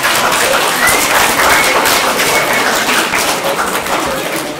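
Audience applauding: many people clapping at once in a steady, dense patter that eases a little near the end.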